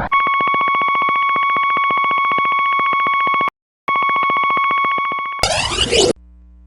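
An electronic buzzer tone, steady in pitch and buzzy, sounding for about three and a half seconds, cutting out briefly, then sounding again for about a second and a half. A short noisy burst follows near the end, dropping into a low hum.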